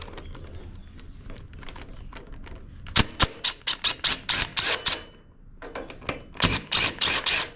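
Cordless DeWalt brushless impact driver hammering in short trigger pulses as it breaks loose the cylinder-head bolts of a single-cylinder Briggs & Stratton overhead-valve engine. The rattling comes in two runs: about three seconds in for roughly two seconds, and again near the end for about a second.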